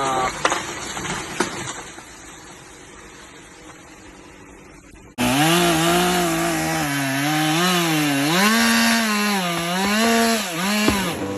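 Chainsaw cutting wood, its engine note rising and dipping under load. It starts abruptly about five seconds in, after a quieter stretch of low noise.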